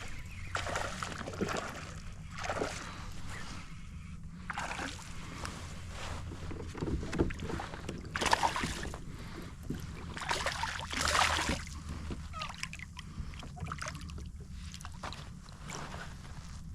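Shallow water sloshing and lapping around a kayak, over a steady low wind rumble, with a few louder splashy swishes, the strongest about a third and two-thirds of the way through.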